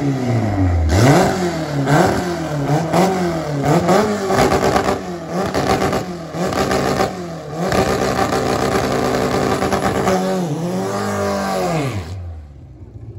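Car engine at a drag-strip start line, revved up and down about once a second, then held at high revs for a few seconds before the revs fall away and it quiets down.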